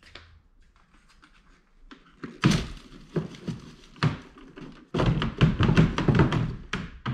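The plastic dirt cup of a Hoover upright vacuum is knocked against the inside of a plastic trash can to shake out packed cat hair and dust. A few separate thunks come first, then a rapid run of knocks starts about five seconds in.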